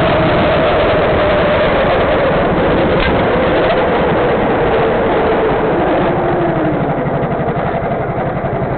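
Go-kart engine running right by an onboard camera, its pitch falling steadily as the kart slows down, dropping toward idle about two-thirds of the way through.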